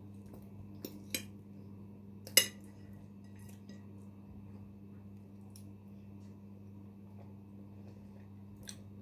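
Cutlery clinking against a plate several times, the loudest clink about two and a half seconds in, over a steady low hum.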